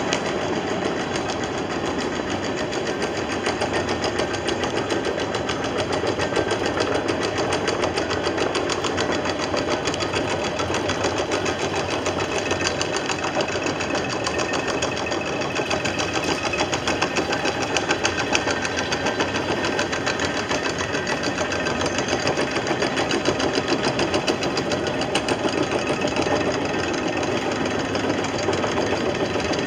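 Chain-towing tug hauling itself along the chain laid on the canal bed: a steady, rapid mechanical clatter from the chain running over its winch drums and the drive machinery.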